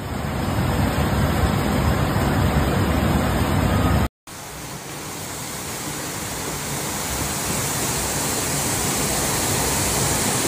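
Steady roar of a muddy flood torrent, a river in spate rushing past. About four seconds in the sound cuts out for a moment and comes back hissier.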